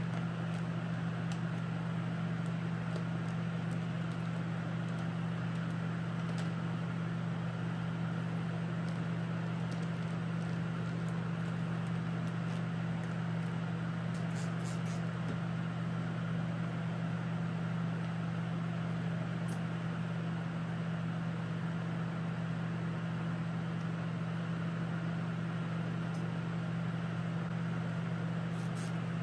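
Laminar flow hood blower running with a steady low hum.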